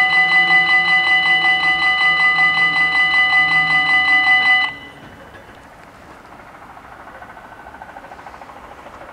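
Electronic level-crossing warning bells ringing, a loud rapidly pulsing tone. They cut off abruptly about four and a half seconds in, once the barriers are fully down, leaving only faint low background noise.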